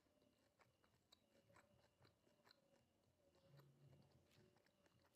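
Faint close-up chewing of crispy fried mushrooms with the mouth closed: small irregular crunches and crackling clicks.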